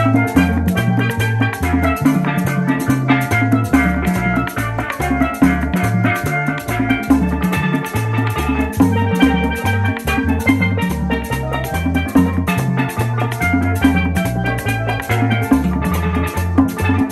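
Upbeat tropical Latin music with a steady beat: a bouncing bass line, busy percussion and a bright melodic lead.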